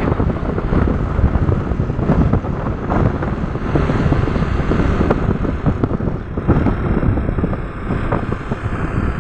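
Wind buffeting the microphone of a moving motor scooter, a loud rough rumble with the ride's engine and road noise mixed in underneath.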